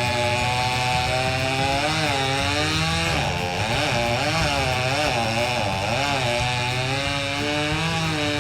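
Chainsaw running at high revs while cutting into a tree trunk, its engine pitch sagging and recovering several times in the middle as the chain takes load, then steadying again near the end.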